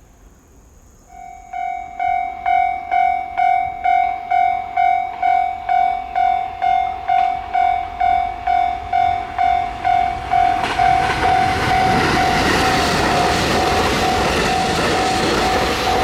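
Japanese level-crossing warning bell starting about a second in and ringing about twice a second. From about ten seconds in, a train's rumble and rail noise rise and run loud under the bell as the train passes over the crossing.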